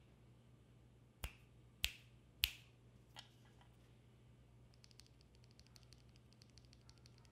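Three loud, sharp clicks about half a second apart, then a quieter one, followed near the end by a run of quick, light keystrokes on a mechanical keyboard with lubed Creamcicle switches and a brass plate.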